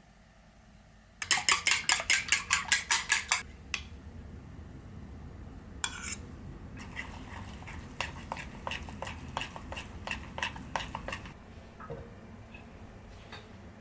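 Kitchen utensil clatter: quick runs of sharp taps, about five a second. A loud run of about a dozen comes about a second in, and a quieter, longer run follows midway.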